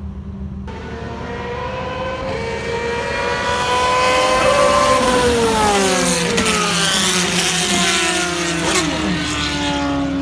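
Open-wheel single-seater race car passing at speed: its engine note climbs in pitch as it approaches, then drops in pitch as it goes by about five seconds in.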